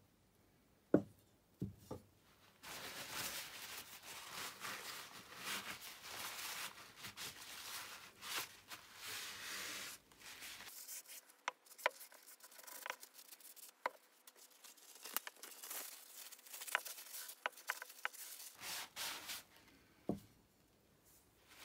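Paper towel scrubbing and wiping along a steel garden-scissor blade, a scratchy rubbing with small clicks, as the black residue left by electrolytic rust removal is wiped off. A few light knocks of metal on the bench come just before the rubbing starts and once after it stops.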